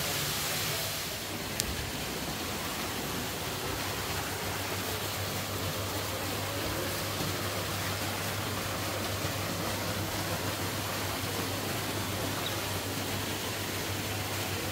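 Steady rushing splash of an artificial waterfall pouring into a pool, with a low steady hum coming in about four seconds in and a single click early in the sound.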